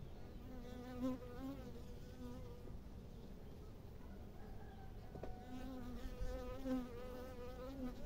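Honeybees buzzing at the hive: a wavering, pitched wing buzz that comes twice, for about two seconds near the start and again for about three seconds in the second half.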